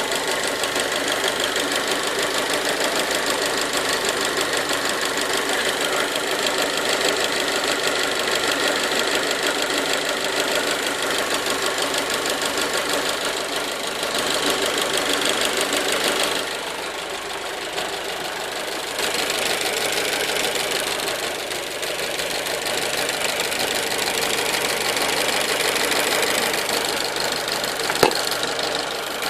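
Fiat 1.4 T-Jet 155 hp turbocharged four-cylinder petrol engine running steadily, with a fast ticking clatter through it. It drops a little quieter for a few seconds past the middle, and there is a single sharp click near the end.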